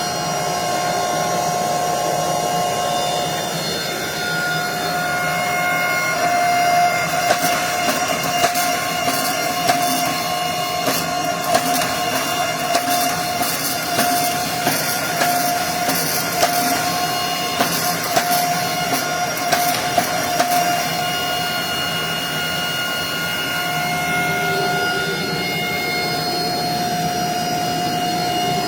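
Forging machine running with a steady multi-tone hum while hot steel is drawn out on drawing dies, with a run of irregular sharp knocks and clicks from about 7 to 21 seconds in.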